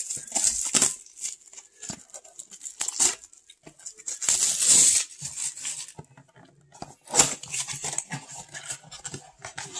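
Clear plastic shrink wrap torn and crinkled off a small cardboard trading-card box, then the box's cardboard top flap pulled open, in irregular rustling bursts with a sharp click about seven seconds in.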